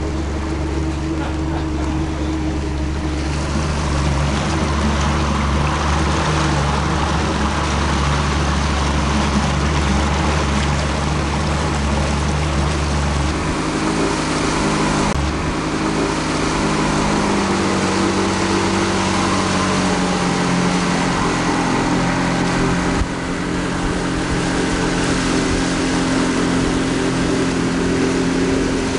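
Small motorboat's engine running steadily under way, with rushing water and wind noise; the engine note shifts about halfway through.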